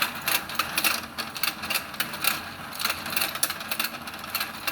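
Battery-powered toy fishing game turning its pond: a motor whirring with a run of plastic clicks from its gears, a few a second.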